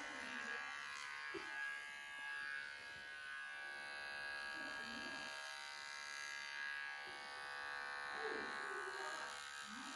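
Cordless electric hair clippers buzzing steadily as they cut short hair.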